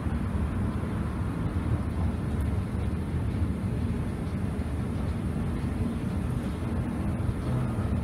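Escalator running: a steady low rumble from its drive and moving steps.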